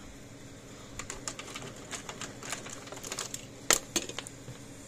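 Light irregular clicks and taps of hand work on a fence charger's circuit board, marking and handling parts at the bench, with one louder click about three and a half seconds in, over a faint steady hum.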